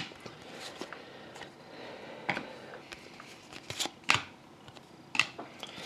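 A stack of trading cards being flipped through by hand: soft sliding and rustling of card stock, with a handful of short clicks and snaps as cards are moved, the sharpest about four seconds in.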